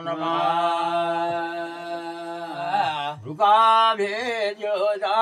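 Jagar chanting: voices hold one long steady note for nearly three seconds, then break into shorter wavering sung phrases.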